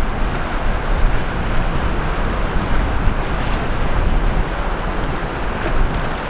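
Sea waves washing continuously onto the beach, with wind buffeting the microphone as a low rumble underneath.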